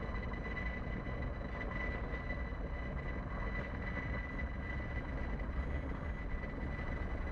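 London Overground Class 378 electric train arriving and running slowly along the platform, a steady low rumble with a thin, steady high whine over it.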